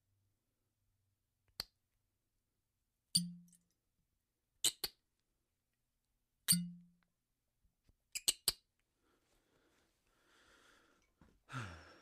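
A cork popping out of a bottle neck twice, each a sharp snap followed by a short hollow low tone, with dry clicks of cork on bottle in between. Near the end comes a faint rustle and a short squeak that falls in pitch.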